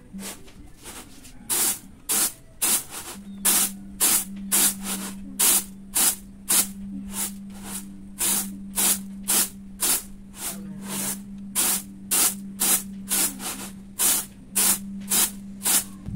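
Rapid rhythmic swishing strokes, about two a second and slightly uneven, over a steady low hum.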